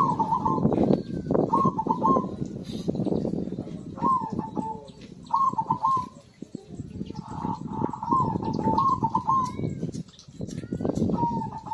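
Zebra dove (perkutut) cooing its short rolling phrases again and again, about a second each, with a longer run of phrases in the second half. Smaller birds chirp faintly higher up, over a dense low background noise.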